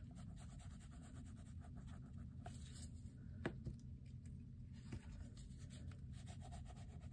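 Faint scratchy rubbing of soft Sennelier oil pastels on paper as colours are blended, with a light tap or two around the middle, over a low steady hum.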